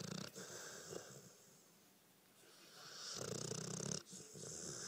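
Young pit bull snoring in her sleep: a fluttering snore at the start and another about three seconds in, with quieter breathing between.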